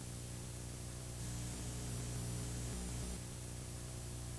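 Steady electrical hum with even hiss from an old analog videotape recording, with no other clear event.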